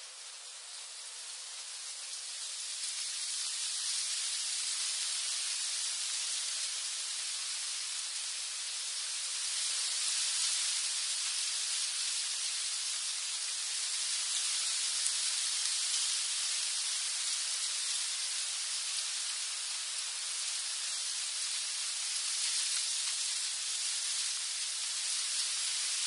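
Wind blowing through tree leaves: a steady, high-pitched rush of noise that builds up over the first few seconds and then holds, with slow gentle swells.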